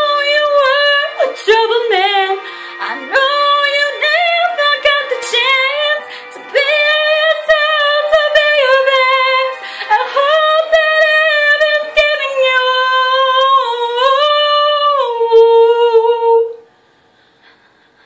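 A woman singing a slow ballad solo, holding long notes and sliding through runs. The singing stops about sixteen and a half seconds in.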